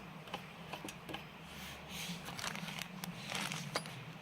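Light clicks and rustling from small parts being handled on a workbench, over a faint steady hum.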